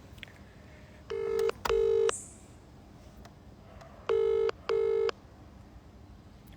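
Telephone ringback tone heard over a phone's loudspeaker: two double rings, each a pair of short, steady buzzy tones, about three seconds apart. It is the sign that the called phone is ringing and has not yet been answered.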